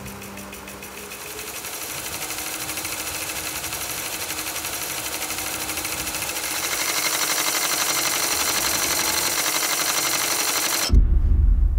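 Film sound-design riser: a fast, even mechanical rattling buzz grows steadily louder for about ten seconds, then cuts off abruptly into a deep boom near the end.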